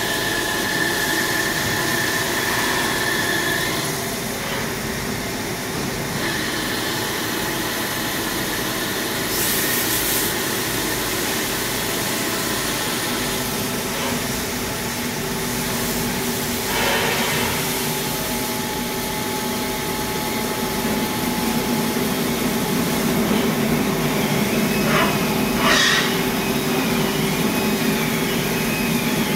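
Haas CNC lathe machining a part: the spindle and chuck spin while the tool cuts under a coolant spray, giving a steady machine hum with a few short hisses.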